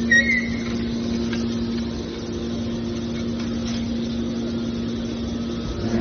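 A machine running with a steady low hum, with a brief high squeak at the start.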